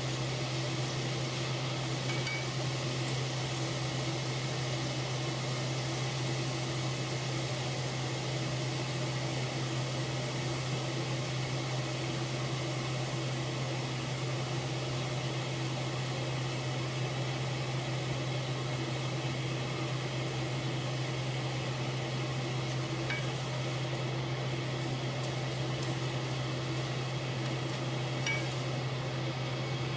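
Fresh egg noodles deep-frying in a wok of hot oil, the oil sizzling steadily over a constant low hum. A few light clicks of utensils against the wok near the end.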